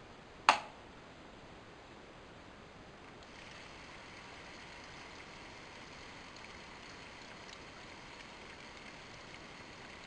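A sharp click about half a second in, then from about three seconds in the Alphacool Laing DDC310 centrifugal water-cooling pump running with a quiet, steady hiss as coolant churns and bubbles through its tube reservoir.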